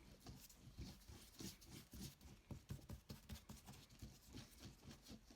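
Faint, irregular soft taps and strokes of a paintbrush dabbing gold paint onto a paper page, several a second.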